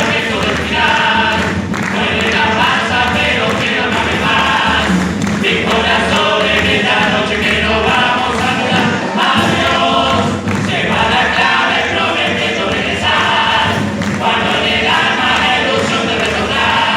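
Many voices singing together over music, loud and continuous, in phrases a few seconds long.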